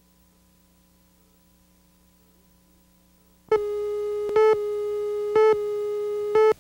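Videotape slate countdown tone: a steady buzzy electronic tone starts about halfway in and swells into a short louder beep once a second, four times, then cuts off abruptly. Before it there is only a faint mains hum.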